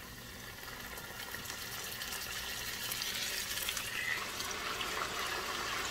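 Marinated steak sizzling in a pan of hot oil and marinade, a steady hiss with fine crackle that grows gradually louder.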